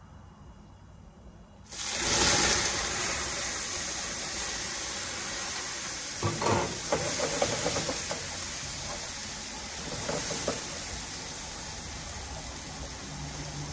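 Ground meat dropped into a hot skillet, breaking into a loud, steady sizzle about two seconds in. A spatula stirs and scrapes the meat in the pan, with a few louder strokes in the middle and again later on.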